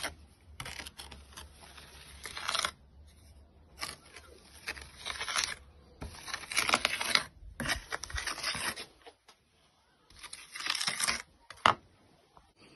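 Rough scraping noise in repeated bursts of one to two seconds, with short pauses between them.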